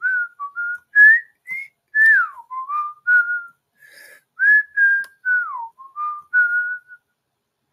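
A person whistling a short, wandering tune: about fifteen short notes, with two falling slides about two seconds in and again near the middle.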